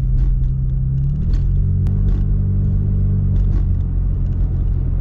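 Toyota Tacoma pickup driving on a paved road: a steady low engine and road drone whose engine note shifts about a second and a half in.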